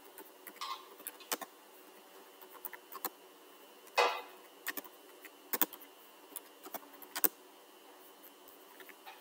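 Computer keyboard keys clicking irregularly as a short message is typed, a few keystrokes a second, with one louder knock about four seconds in.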